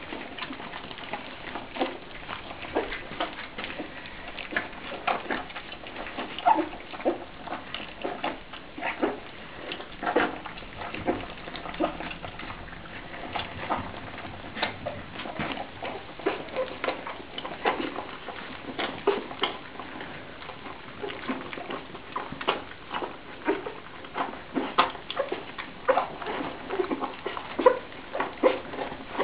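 A litter of English cocker spaniel puppies eating together from one bowl: wet lapping and smacking, heard as many quick, irregular clicks a second.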